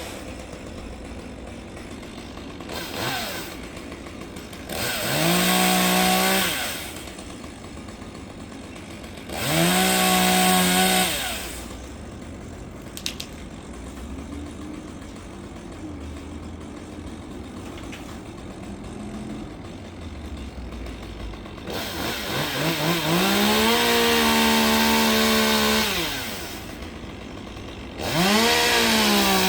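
Gas chainsaw idling and revved up to full throttle again and again, each burst rising in pitch, holding a couple of seconds and falling back to idle. There is one brief blip a few seconds in, and the longest rev comes past the middle.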